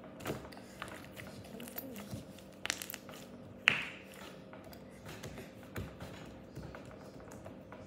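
Slime being stretched, squeezed and pressed flat on a table, making small sticky clicks and pops, with one sharper pop about halfway through.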